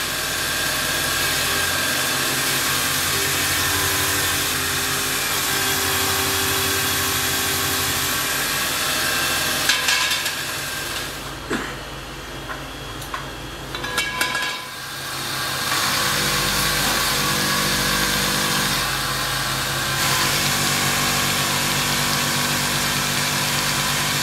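Bench grinder's abrasive wheel grinding a steel motorcycle wheel rim: a steady motor hum under a high hiss of metal being ground. About halfway the grinding eases off for a few seconds, with a few sharp knocks, then starts again.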